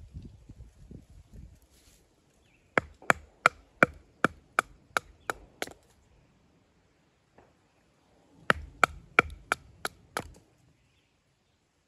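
Firewood being chopped: a quick run of about ten sharp blows, about three a second, then after a pause about six more, each with a short ring.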